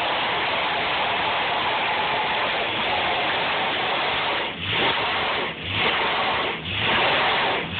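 Ford Crown Victoria doing a burnout: the rear tyre spins against the pavement in a loud, steady hiss. For the last three seconds the sound dips briefly about once a second.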